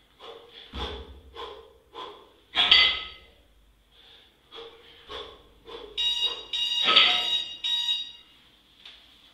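Hard, rhythmic breathing of a kettlebell lifter working under two kettlebells in the rack position: short sharp breaths about every half second, one heavy exhale under three seconds in. From about six to eight seconds in, an electronic timer beeps several times over the breathing.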